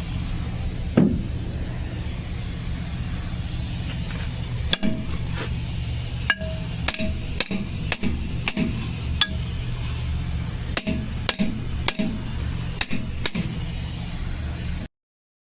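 A vehicle's engine running steadily, with sharp knocks coming at irregular intervals, a dozen or so of them, most between about five and thirteen seconds in. The knocks are the brake noise on a vehicle whose brakes pull to one side. The sound cuts off suddenly near the end.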